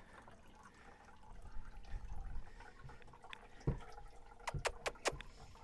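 Quiet handling sounds from dishing out wet cat food into plastic bowls: a soft wet shuffling, one knock about two thirds of the way in, then a quick run of four or five sharp clicks near the end.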